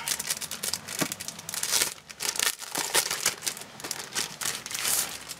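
Plastic wrap and paper sheets crinkling and rustling as they are handled inside an opened board-game box, a dense run of irregular crackles.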